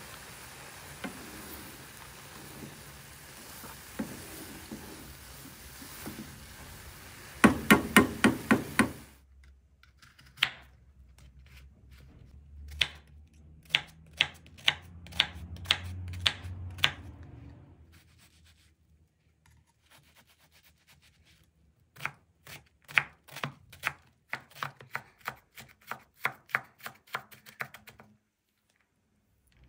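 Knife chopping on a cutting board in bursts: a quick run of about eight chops, a few scattered single chops, then a steadier run of about two or three chops a second near the end.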